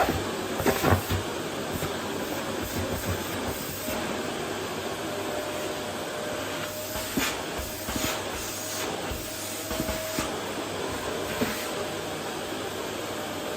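Vacuum cleaner running steadily on a wooden floor, with occasional light knocks and a faint steady tone for a few seconds in the middle.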